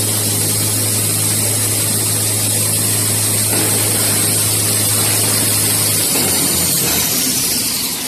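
Toilet paper and kitchen towel converting line running: a steady mechanical rush with a low hum and a high whine. The hum stops about six seconds in, and near the end the whine falls in pitch as the sound eases off.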